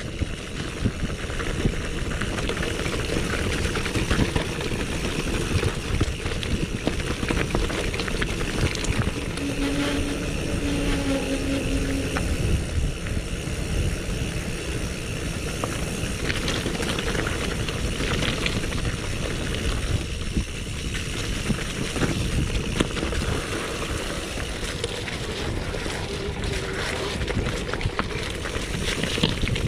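Mountain bike descending rough gravel and stony trail: tyres crunching over stones and the bike rattling and clattering continuously, with wind buffeting the camera microphone. A brief low tone sounds about ten seconds in.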